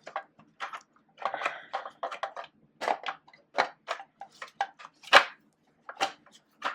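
Irregular plastic clicks, taps and light knocks as the plastic housing of a cordless hard surface sweeper is handled and fitted back together, with one sharper knock about five seconds in.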